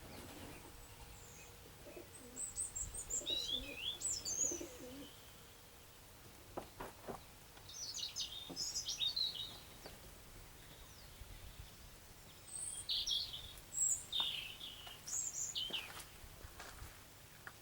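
Birds chirping in short, quick calls that come in scattered bouts, over a faint steady background.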